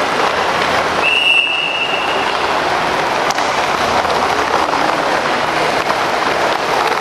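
Several quad roller skates rolling on a sport-court rink floor, a steady rolling noise with light clicks of wheels and stops. A single high steady tone sounds about a second in and lasts over a second.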